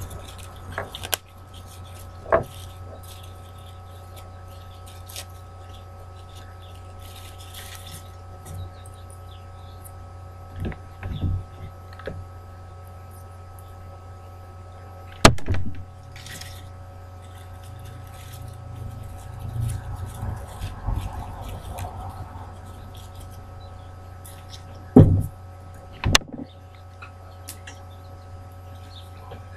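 Hands handling craft materials and a hot glue gun: several sharp clicks and knocks and some soft rustling, over a steady low electrical hum.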